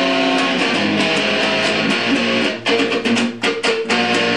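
Electric guitar being played: a run of held notes, broken by a few short choppy stops and strokes about three seconds in.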